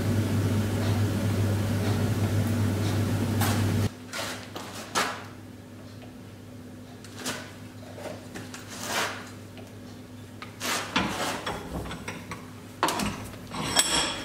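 A steady machine hum that stops abruptly about four seconds in. After that come scattered knocks and clatter of things being handled, with one sharper, ringing knock near the end.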